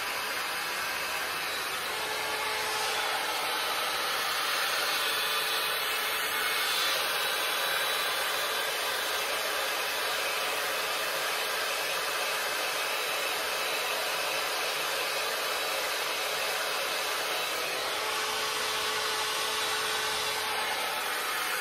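BaByliss hot air brush styler running continuously, a steady hair-dryer fan rush and hiss as it blows warm air through the hair.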